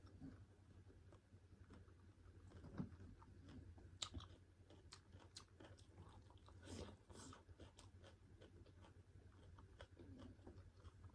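Faint close-up chewing and wet mouth clicks of someone eating pork curry with white rice, with a cluster of sharper clicks and smacks a few seconds in.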